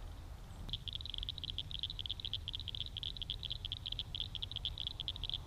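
A frog calling from the pond: a fast, high-pitched pulsed trill that starts abruptly about a second in and keeps going without a break.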